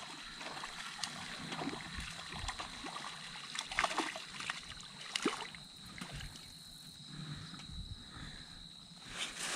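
Hooked fish splashing and sloshing at the pond's surface as it is reeled in on light tackle, with a few sharper splashes around the middle.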